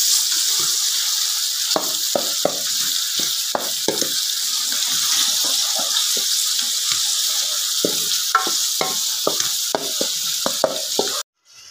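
Chicken pieces sizzling as they fry in a metal pot with onions and tomatoes, while a wooden spoon stirs them, knocking and scraping against the pot from about two seconds in. The sound cuts off suddenly near the end.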